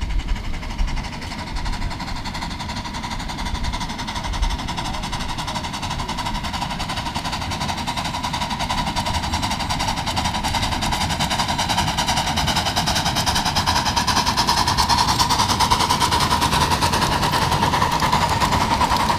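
Ridden 7½-inch-gauge miniature train approaching on its track: a fast, continuous clatter of wheels with a steady high ring over it, growing louder over the last several seconds.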